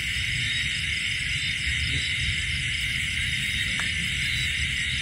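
Steady night chorus of insects such as crickets, a dense high-pitched trilling with faster pulsing higher up. A low rumble sits underneath.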